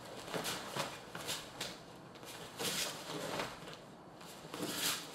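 Karate uniforms swishing and bare feet shuffling on foam mats as two people trade blocks and strikes: a series of short rustles, several to a second at times, with no voices.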